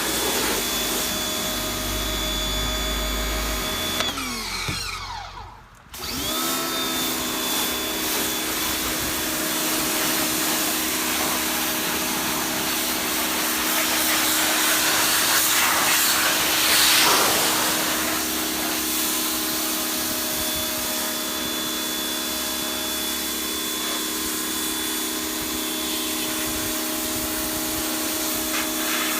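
Electric pressure washer's 1800-watt universal motor and pump running with a steady hum. About four seconds in it winds down and stops, then starts again a couple of seconds later, as the pump's total stop system shuts it off whenever the trigger is released. The spray's rushing grows louder for a few seconds midway.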